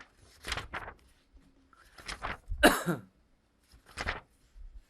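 A man clearing his throat and making a few short vocal sounds, the loudest about halfway through.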